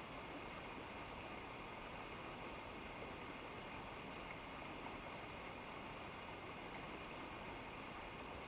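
Steady, even rush of flowing mountain river water.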